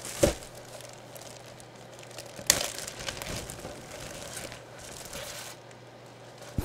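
Clear plastic bag holding a folded jersey crinkling and rustling as it is handled, with two sharp clicks, one just after the start and a louder one about two and a half seconds in.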